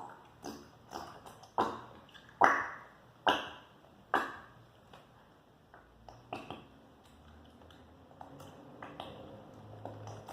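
A run of sharp plastic clicks and knocks, about one a second and loudest in the first few seconds, then fainter and more scattered, as a bottle of white glue is emptied into a small plastic pot.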